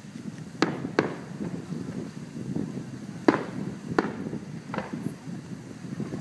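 Aerial fireworks shells bursting: five sharp bangs at uneven spacing, two close together near the start, two more around three to four seconds in, and a weaker one soon after.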